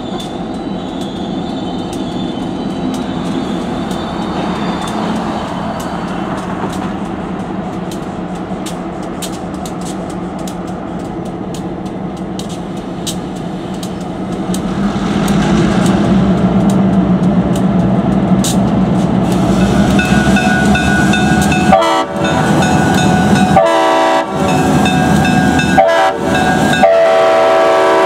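Three EMD GP11 diesel locomotives rumbling as they approach, growing louder about halfway through. From about two-thirds of the way in, the lead unit's multi-chime Leslie RS-5T horn sounds a series of blasts for the grade crossing, the last one as the locomotive reaches the crossing near the end.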